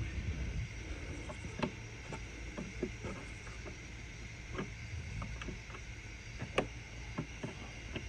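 Light, scattered clicks and taps of a screwdriver and Torx screw against a plastic tail-lamp housing as the lamp is being fitted and pressed into place, with one sharper click about two-thirds of the way through, over a low steady rumble.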